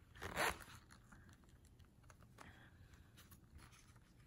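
Hands handling a leather zip-around wallet: a short rustling scrape about half a second in, then faint light clicks and taps.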